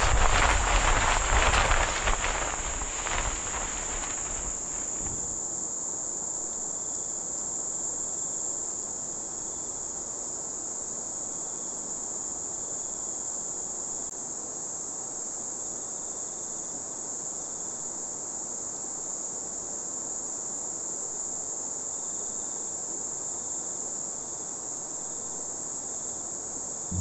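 Steady high-pitched insect shrilling over the even rush of a fast-flowing river. A louder rushing noise in the first few seconds dies away about five seconds in.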